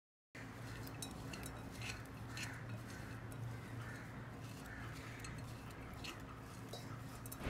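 Faint scraping and light clinks of a metal spoon against a ceramic bowl, pressing and mixing boiled mung beans with grated coconut, over a low steady hum.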